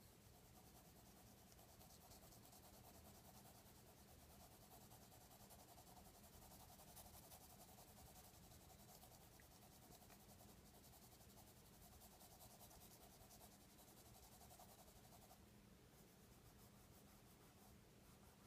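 Faint scratching of a graphite pencil on drawing paper, over a low steady hum; the scratching changes character about fifteen seconds in.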